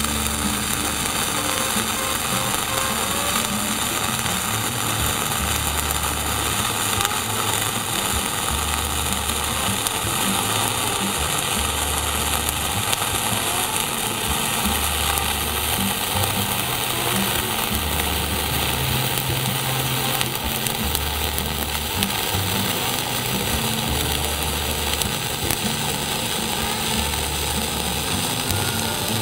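Gas-shielded (dual-shield) .045 flux-core wire welding arc burning without a break, laying a fill/cap bead on steel plate: a steady, even hiss.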